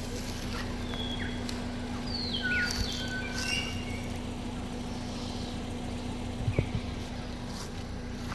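Birds chirping: a run of short whistled notes, some sliding up or down in pitch, about one to four seconds in, with a few more later, over a steady low background noise. A couple of short knocks come about six and a half seconds in.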